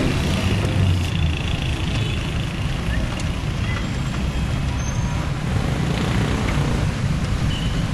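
Steady street traffic noise heard from a becak, a pedal cycle rickshaw, rolling along a city road, with a constant low rumble.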